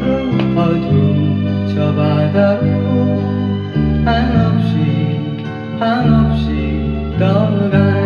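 A Korean folk-pop song playing from a vinyl LP on a turntable, in a guitar-led passage with chord changes and sliding notes.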